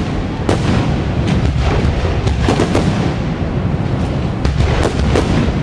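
Fireworks display: aerial shells bursting in quick succession, sharp bangs over a continuous low rumble of booms.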